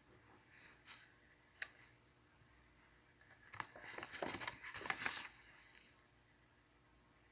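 Pen and paper at a desk: a couple of light taps in the first two seconds, then about two seconds of scratchy pen strokes and paper rustling around the middle.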